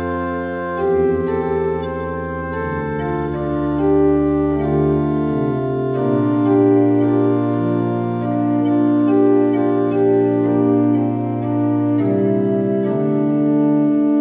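Organ music playing slow, sustained chords, the notes held steadily and changing every second or two.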